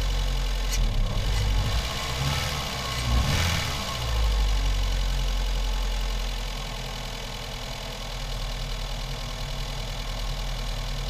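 1996 Ford Fiesta's 1.3 Endura-E four-cylinder petrol engine idling, with a brief rise in revs about three seconds in before settling to a steady idle.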